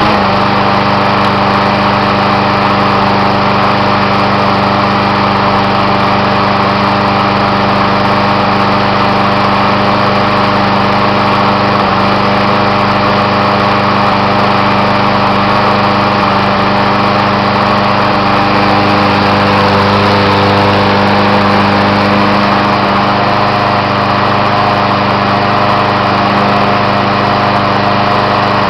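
Walk-behind lawn mower's small petrol engine running steadily just after starting. Its carburetor is dirty, and the owner says it runs terribly.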